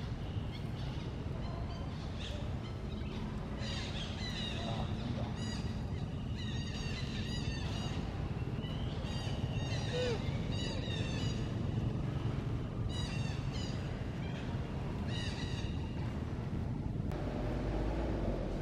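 Birds chirping in quick repeated phrases, several bursts over the seconds, over a steady low rumble of outdoor background noise.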